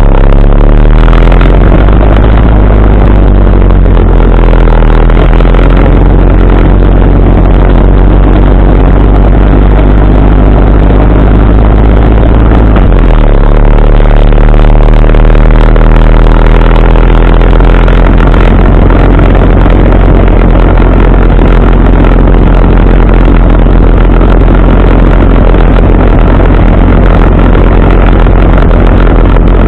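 Motorcycle engine running steadily while riding, with a strong low rumble. The engine note changes about thirteen seconds in.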